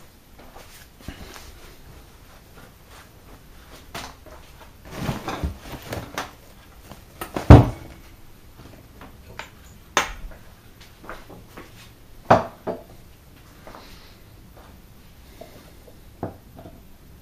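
Plastic containers and bottles being moved about in a kitchen cupboard: scattered knocks and clatters, the loudest about halfway through.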